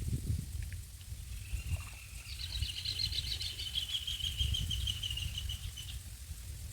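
A bird sings a fast trill of rapidly repeated notes, starting about a second and a half in and lasting about four and a half seconds, over a steady low rumble.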